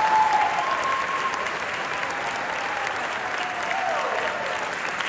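Audience applauding in a concert hall, with a few voices calling out over the clapping.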